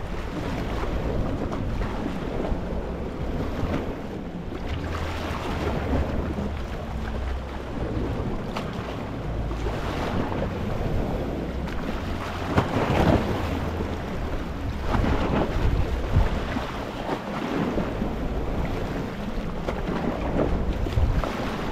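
Small sea waves washing over a rocky shore, surging and drawing back every few seconds, with a few louder swashes past the middle, over a steady low rumble.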